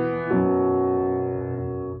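Slow piano music: a chord struck about a third of a second in, then held and slowly fading away.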